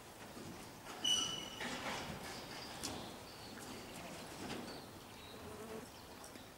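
Horse walking on arena sand: faint, soft hoofbeats, with a short high-pitched chirp about a second in.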